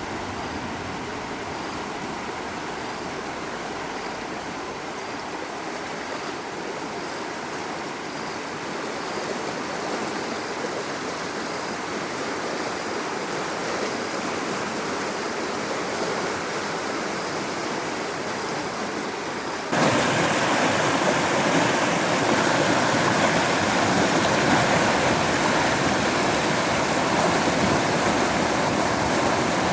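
Rushing floodwater, a steady wash of noise that suddenly gets louder about twenty seconds in.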